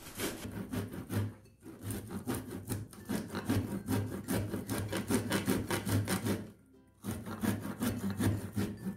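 Fresh peeled corn cob rubbed up and down on the fine side of a stainless steel box grater: a quick run of rasping strokes, several a second, pausing briefly about a second and a half in and again a couple of seconds before the end.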